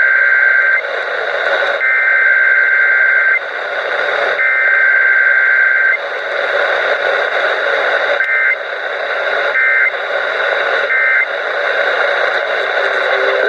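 Emergency Alert System SAME data tones received over the radio. The two-tone digital data bursts warble between two pitches. The first burst ends about a second in and two more follow, each about a second and a half long. A couple of seconds later come three short bursts, the end-of-message code, all over a steady radio hiss.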